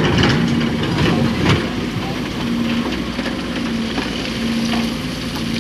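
Diesel engine of heavy earthmoving machinery running steadily, with knocks and scraping of the work over it, busiest in the first second and a half.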